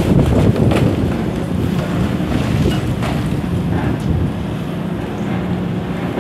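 Diesel engines of demolition excavators running steadily, with a few sharp cracks and crunches of concrete being broken by the high-reach demolition machine, about a second, three seconds and four seconds in. Wind rumbles on the microphone.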